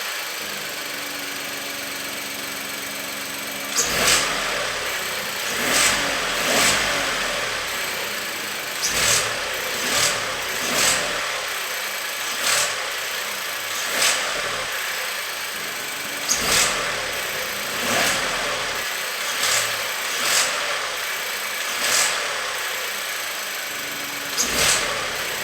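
Volkswagen up! 1.0 TSI turbocharged three-cylinder engine running, with short rises in level every second or two from about four seconds in; it is being recorded for a strange noise from the engine.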